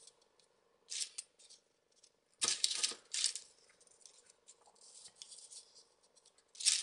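Folded paper modules of a 3D origami model rustling and crinkling as they are pushed onto each other by hand, in short bursts, the loudest about two and a half seconds in.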